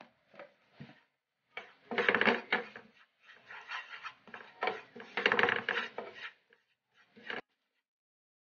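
Spoon scraping across a dry non-stick frying pan, stirring red spice powder as it dry-roasts, in bursts of quick scraping strokes, the last one short, near the end.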